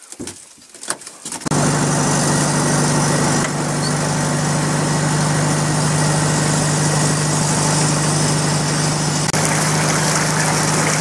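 Boat motor running at a steady speed, heard from on board the boat on the water. It cuts in abruptly about a second and a half in and holds one even pitch.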